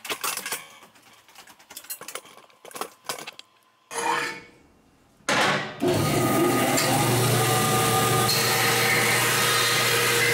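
Scattered clicks and knocks of handling, then about five seconds in a vertical bandsaw starts up with a rising whine and runs steadily with a hum and hiss as a piece of aluminum is fed into its blade.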